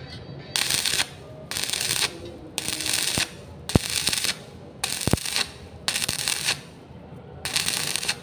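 Stick (arc) welding on thin rectangular steel tube, with the arc struck and broken over and over: seven sizzling bursts of about half a second to a second each, separated by short pauses. This stop-start technique is used to bridge a large gap in the joint.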